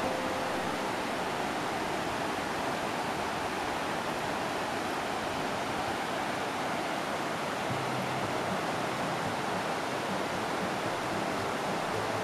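Creek rapids rushing over rocky shoals: a steady, even rush of whitewater.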